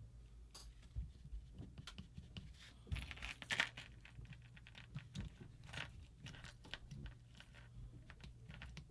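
Faint, scattered small metallic clicks and rattles of an Angel LCD paintball marker and its key on a key chain being handled, with a busier run of clicks about three seconds in.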